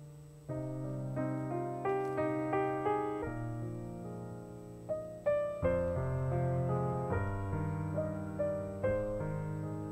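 Slow, gentle piano music: single melody notes and chords struck about every half second over held bass notes.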